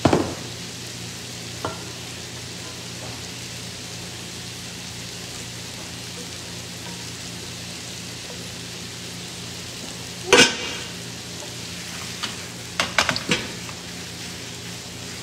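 Beef cubes searing in butter in a frying pan, a steady sizzle. Over it a spatula knocks and scrapes against the pans a few times, the loudest knock about ten seconds in, with a quick run of stirring clatter near the end.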